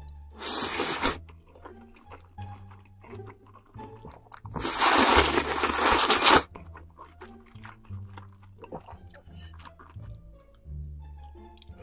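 Close-miked slurping of thick noodles and soup from a spoon: a short loud slurp about half a second in and a longer one of nearly two seconds around five seconds in, with wet chewing clicks between them.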